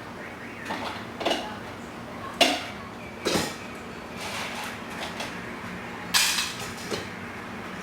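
Dishes clinking and knocking, about six separate short knocks spread over several seconds.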